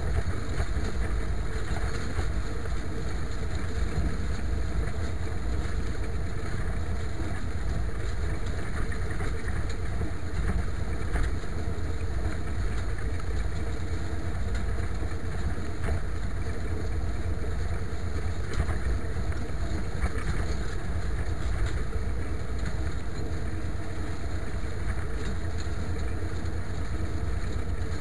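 IMT 539 tractor's three-cylinder diesel engine running steadily.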